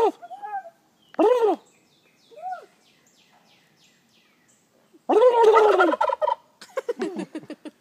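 Male turkey gobbling: a few short rising-and-falling calls, then about five seconds in a long, loud gobble that breaks into a fast rattle near the end.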